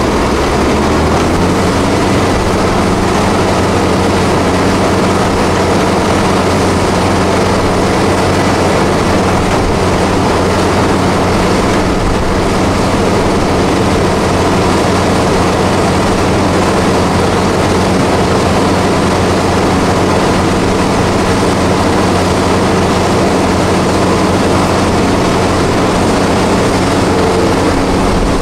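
Heavy diesel farm machinery at a maize harvest, a forage harvester and tractors, running steadily: a constant loud engine drone with a dense rushing noise over it.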